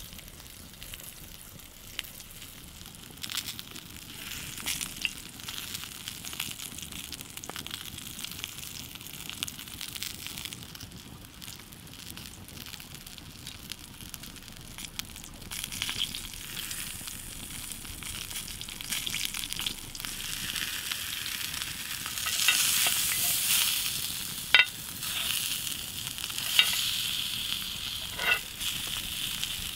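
Bone-in ribeye searing in a cast-iron skillet over an open wood fire: steady sizzling with scattered crackles. The sizzle grows louder in the second half, and three sharp pops come near the end.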